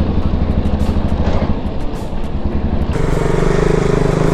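Motorcycle engine running while riding, its note stepping up and growing stronger about three seconds in.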